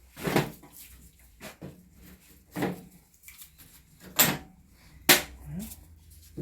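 Short knocks and scrapes from an old plywood car dashboard being prised and worked loose from the chassis, four louder ones with fainter ones between.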